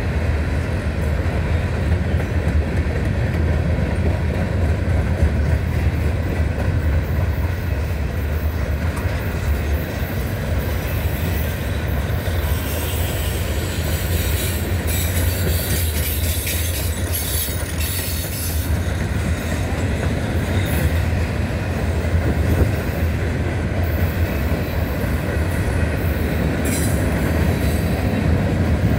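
Norfolk Southern freight train's covered hopper cars rolling steadily past with a continuous low rumble of steel wheels on rail. Stretches of high-pitched wheel squeal come through about halfway in.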